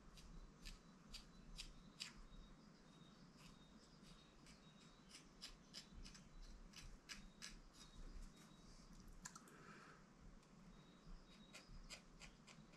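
Faint quick scraping clicks in irregular runs, about two or three a second, from a small metal hand tool being worked by hand.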